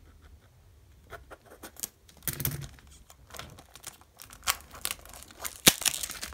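Clear plastic wrap on a cardboard box being slit and torn off, crinkling and tearing in short crackles, with one sharp snap near the end.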